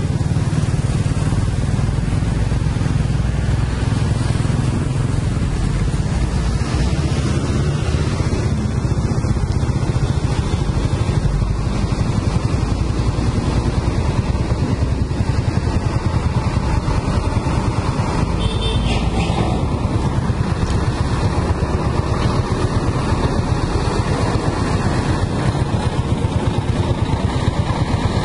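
Steady low rumble of road traffic: motorcycle engines and heavy truck engines running as they pass.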